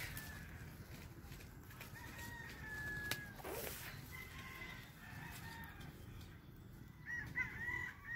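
Rooster crowing faintly, one long call about two seconds in, with more short chicken calls near the end over a low steady rumble.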